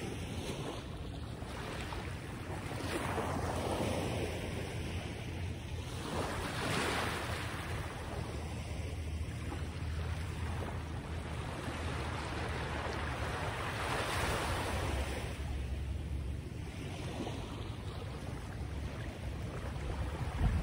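Wind blowing on the microphone, a steady rushing noise that swells in gusts every few seconds over a low rumble.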